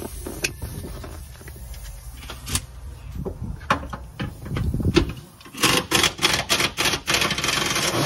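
Metal seat-belt buckles and latch plates clinking against each other, with rustling as the belts are handled. It turns into a quick run of clicks and clatter in the last few seconds.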